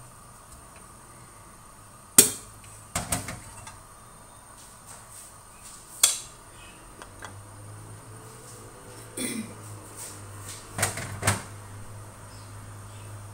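Kitchenware handled on a counter: several separate sharp knocks and clinks, as the oil dispenser bottle is set down and a small container is handled. A faint low hum comes in about halfway.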